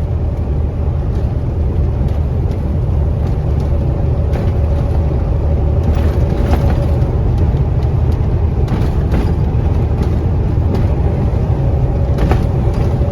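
KamAZ 4308 truck heard from inside its cab: a steady low rumble of the diesel engine and tyres, with a faint steady whine and a few short knocks and rattles.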